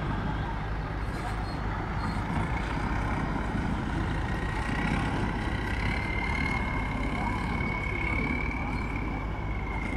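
Long-tail boat engine running steadily as the boat passes at speed, with a thin high whine that climbs slightly in pitch about six seconds in.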